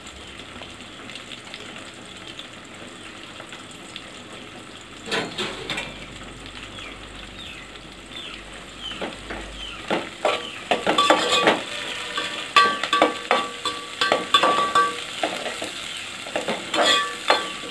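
Sliced onions and green chillies frying in oil in a metal pot, a steady sizzle with a brief louder burst about five seconds in. From about ten seconds in a spoon stirs them, scraping and clinking against the pot. The onions are being fried until well browned as the base of a curry.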